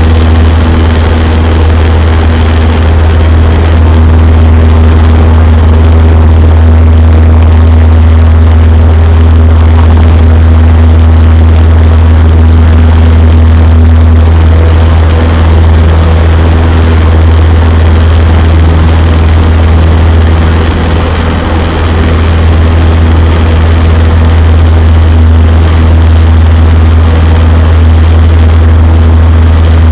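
Cessna 152's Lycoming O-235 four-cylinder engine and propeller at full throttle through the takeoff roll and lift-off, heard inside the cabin as a loud, steady, deep drone.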